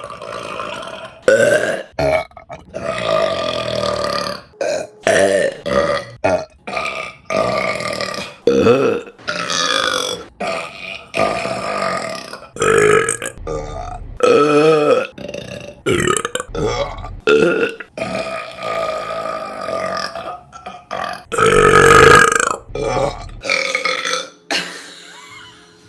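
Women burping loudly, one burp after another, about twenty in quick succession, each cut off sharply before the next. The longest and loudest is a drawn-out burp lasting about two seconds near the end.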